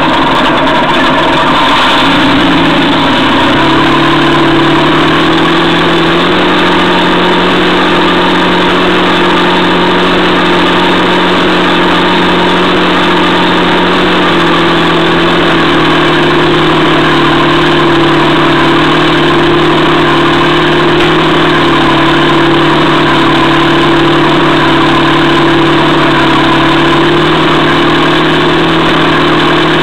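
An Armortek 1/6-scale Panther model tank driving, heard from a camera on the tank: a steady, loud mechanical drone whose pitch steps up and down several times as its speed changes.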